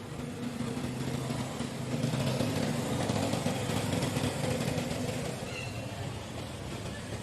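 A motor vehicle engine, likely a motorbike, passing by: a steady hum that grows louder about two seconds in and fades again near the end.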